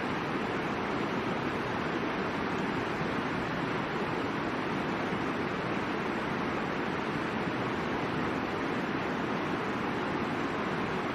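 Steady, even rush of a river's flowing water, with no breaks or changes.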